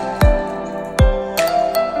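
Background music: soft new-age instrumental with sustained notes over a steady beat.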